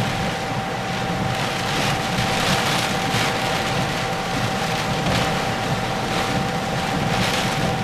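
Hurricane wind and driving rain, from inside a vehicle, a steady rush that surges several times, with a low rumble and a faint steady hum underneath.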